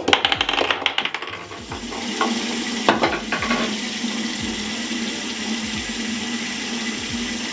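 Bathroom sink tap running steadily, water splashing into the basin, after a quick run of scratchy strokes at the start.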